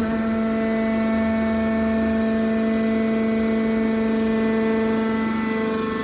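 Hydraulic power unit of a metal baler running: electric motor and hydraulic pump giving a steady hum made of several tones.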